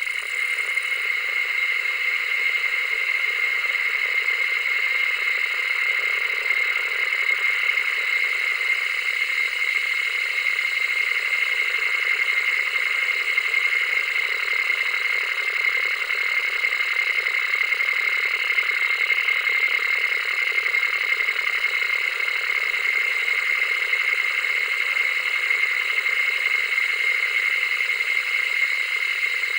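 Analog television static: a steady, even hiss with a thin high tone running through it and no deep bass.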